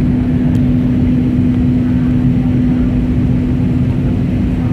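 Airbus A320neo cabin noise in flight: a steady rumble of engines and airflow with a constant low hum running through it.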